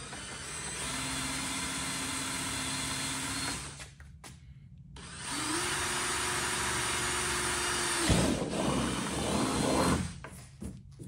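A power drill boring a hole through the kayak's plastic hull in two runs. A first steady run of about three seconds, then a pause, then a second run whose pitch rises as the drill spins up. The second run turns louder and rougher for its last two seconds before stopping.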